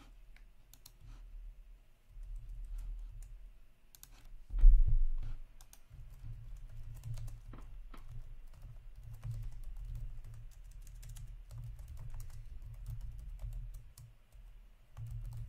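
Typing on a computer keyboard: irregular key clicks, with a single louder thump about four and a half seconds in and a low rumble underneath for much of the time.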